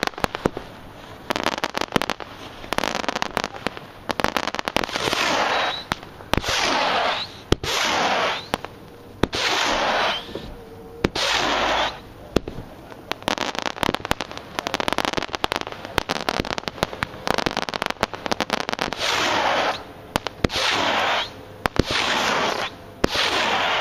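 Epic Fireworks Mad Moth 25-shot firework cake firing: a rapid series of sharp shots as the tubes go off, many followed by about a second of hissing crackle, repeating every second or two.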